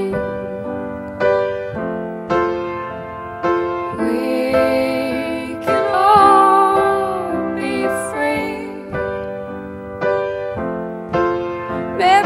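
Slow, gentle song: a chord is struck about once a second and left to ring, with a woman singing one long, wavering line in the middle.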